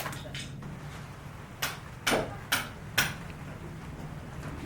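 Four sharp knocks about half a second apart, over a low steady hum.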